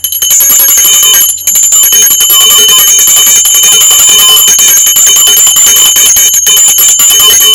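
Brass puja hand bell (ghanta) rung continuously for the aarti, a steady fast ringing with high clear tones, broken only by two brief pauses, one about a second and a half in and one near the end.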